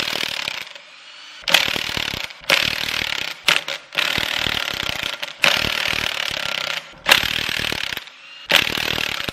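Cordless impact wrench hammering the flywheel bolts loose, in about eight bursts of one to one and a half seconds each, with short pauses between.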